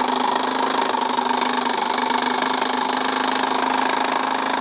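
Small steam engine of a Krick Anna model steam launch running fast on its fired boiler: noisy, a rapid steady beat over a continuous hiss.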